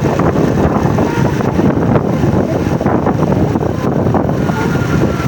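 Heavy wind buffeting the microphone over the rumble of a vehicle on the move.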